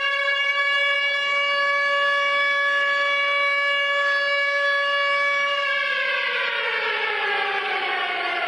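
Recording of a Ukrainian air-raid siren: a civil-defence siren wail held at one steady pitch, then winding down, falling in pitch from about six seconds in. It is the alarm of a Russian missile attack.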